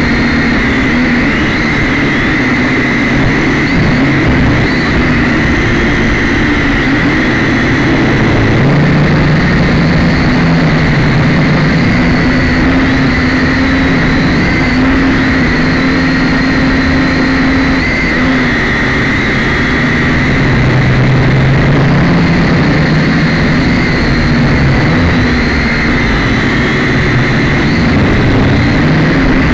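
Syma X5C quadcopter's small electric motors and propellers running, recorded by its own onboard camera: a loud, steady buzzing whine whose pitch drifts up and down as the throttle changes.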